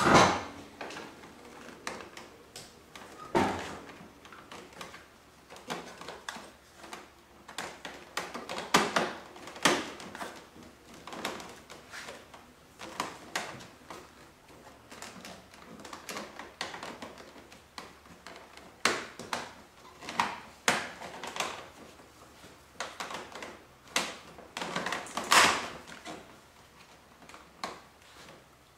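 Hands handling the fairing-pocket cover and trim on a Honda Goldwing 1500 SE: scattered clicks, knocks and rustles, the loudest at the very start and again about 25 seconds in.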